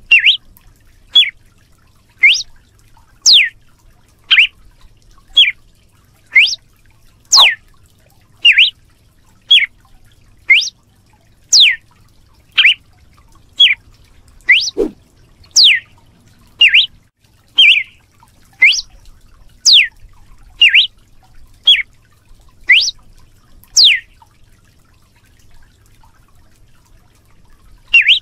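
Red-cowled cardinal (galo-de-campina) giving its sharp whip call: short, loud whistled notes about one a second, some sweeping down from high to low and others up, falling silent about 24 seconds in.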